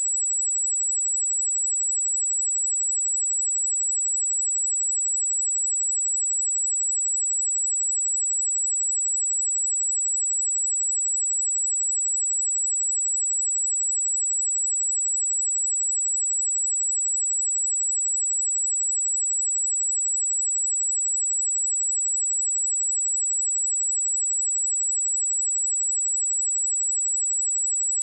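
Pure sine-wave test tone at 7796 Hz, a single steady high-pitched whistle held at constant level.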